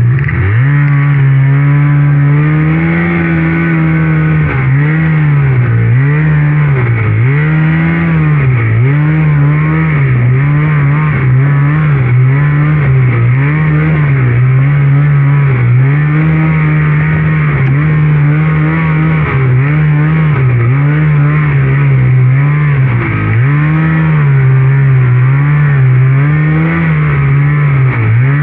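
Polaris RMK Khaos two-stroke snowmobile engine under way. The revs climb as it pulls off at the start, then rise and fall with the throttle about once a second.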